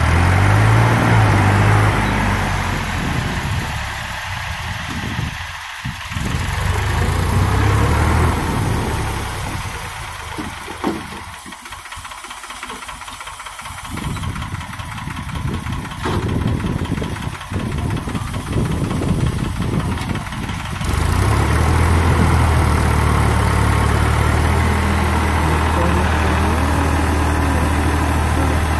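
Powertrac 445 DS Plus tractor's diesel engine running under load while pulling a rotary tiller through flooded mud. The engine note weakens and wavers through the middle, then comes back louder and steady about three-quarters of the way through.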